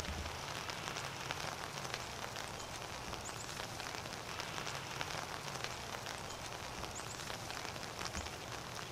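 Light rain pattering steadily on leaves and pine needles: an even hiss scattered with many small drop ticks.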